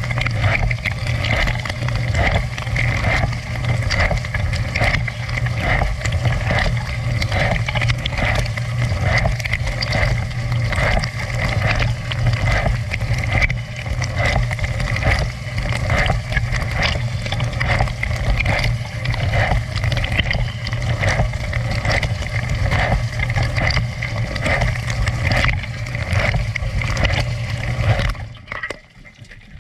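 Dishwasher running its wash cycle: the pump hums steadily while water sprayed inside the tub splashes in a quick repeating rhythm. Near the end the pump stops and the spray dies away.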